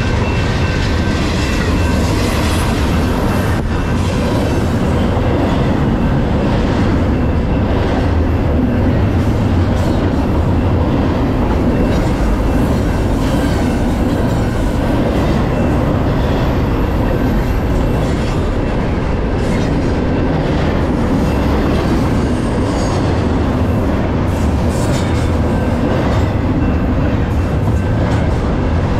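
Double-stack intermodal container cars of a freight train passing close by, steel wheels rolling on the rails in a loud, steady rumble.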